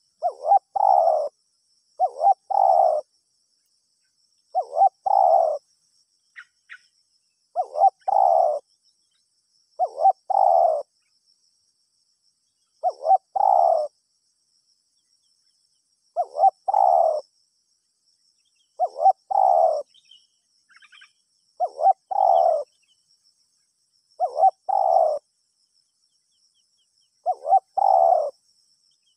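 Spotted dove cooing over and over, about every two to three seconds. Each call is a quick short note or two followed by a longer coo.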